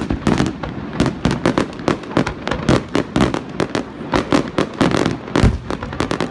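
Fireworks display: aerial shells bursting in a rapid, irregular run of sharp bangs, several a second, with an especially deep, heavy one about five and a half seconds in.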